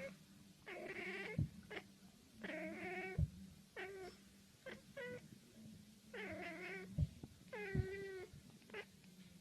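A domestic cat meowing over and over: drawn-out, wavering yowls alternating with short meows. A few sharp low knocks and a steady low hum sit underneath.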